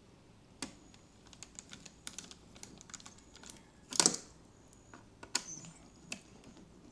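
Small metal laptop screws clicking and tapping as they are handled and set down on a hard surface: a scatter of light, irregular clicks with a louder clatter about four seconds in.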